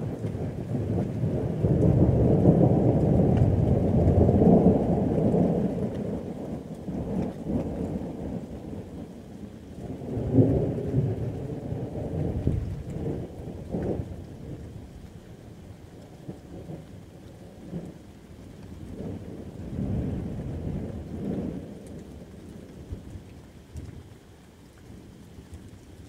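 Thunderstorm with rain falling steadily and rolling thunder. A long deep rumble builds over the first few seconds. More rumbles with sharp cracks come about ten to fourteen seconds in, and another rumble comes about twenty seconds in.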